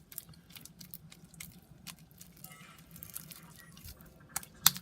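Clear slime being squeezed and stretched by hand: a run of small sticky clicks and pops, with two sharper slaps near the end.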